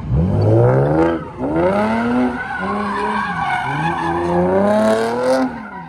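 A car's engine revving up and down repeatedly while its tires squeal as the car slides sideways across the road.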